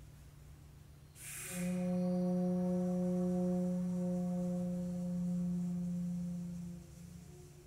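Custom bamboo flute blown by an air compressor: a short hiss of air about a second in, then one long low note held for about five seconds before it fades out. The note is set off by an automated controller reading live wind data.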